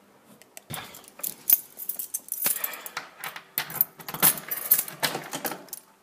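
Keys jingling and clicking against a door lock as it is worked, with irregular sharp metallic clicks and scrapes.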